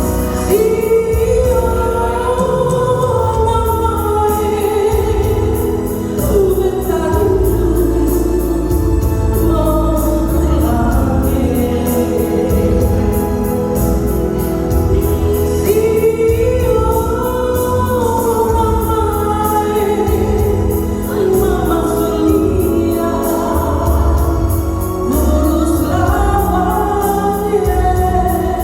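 A woman singing a slow melodic song over electronic organ-style keyboard accompaniment with a steady bass line.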